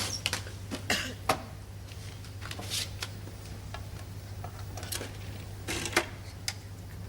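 An irregular scatter of small clicks and knocks over a steady low hum.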